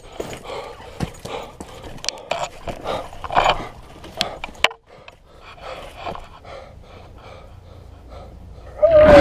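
Irregular footsteps crunching through undergrowth, with hard panting breaths. Just before the end, a much louder sound with wavering tones cuts in.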